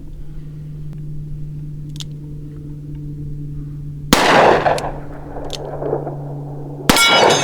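Two shots from a Smith & Wesson Model 19 snub-nose revolver, about three seconds apart, the second followed by a brief ringing.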